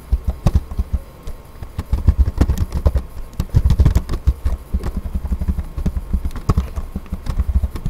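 Computer keyboard typing: a quick, irregular run of keystroke clicks.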